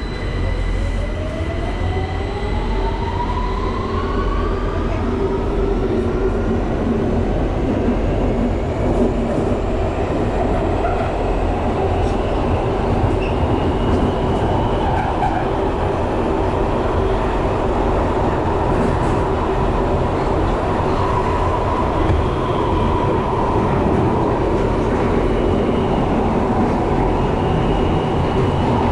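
Victoria line tube train heard from inside the carriage as it pulls away: the traction motors whine, rising in pitch over the first few seconds. Then it runs steadily through the tunnel with a loud rumble and wheel-on-rail noise.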